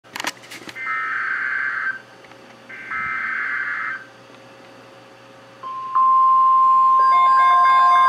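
NOAA Weather Radio Emergency Alert System activation for a tornado watch: a few clicks, then two harsh one-second SAME data header bursts, followed about six seconds in by the steady 1050 Hz weather alert tone. Near the end a weather radio receiver's own beeping alarm melody joins it.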